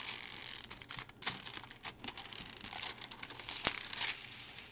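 Clear plastic cover film being peeled back from a glue-coated diamond painting canvas, crinkling and crackling with scattered sharp clicks as it comes away from the glue.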